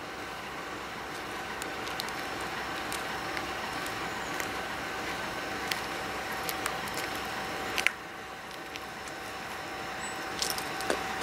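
Diesel freight train running at a distance: a steady noisy rumble with a steady whine that slowly grows louder, with scattered sharp clicks. About eight seconds in there is a sharp click and the sound drops suddenly.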